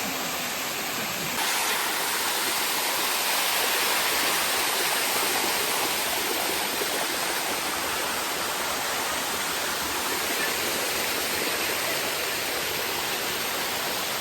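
Water rushing down the Sticky Waterfall, a steady, even rush that gets suddenly louder about a second and a half in.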